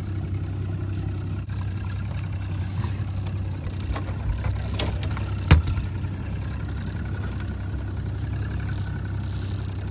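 A fishing boat's engine running steadily at low speed, a constant low hum. A single sharp knock sounds about halfway through.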